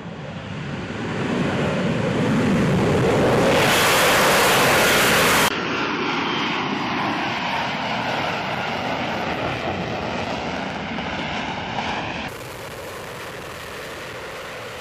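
F-35B Lightning II's single Pratt & Whitney F135 jet engine running at high power through a short takeoff and climb-out. The noise builds over the first few seconds, then changes abruptly about five and a half seconds in and again about twelve seconds in.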